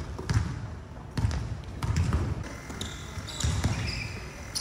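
Basketballs bouncing on a hardwood court as players dribble, a series of irregular thumps.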